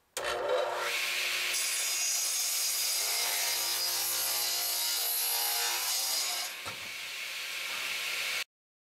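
A 10-inch, 2.5 HP radial arm saw crosscutting a board to square its end. The sound starts suddenly, stays loud and steady for about six seconds, carries on more quietly, then cuts off suddenly near the end.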